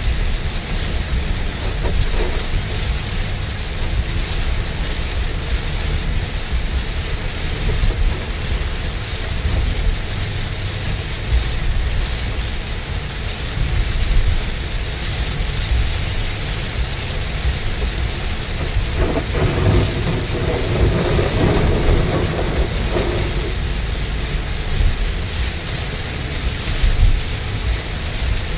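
Heavy rain on a first-generation Toyota Alphard and its tyres hissing on the flooded road at highway speed, heard from inside the cabin as a steady wash of noise over a deep rumble.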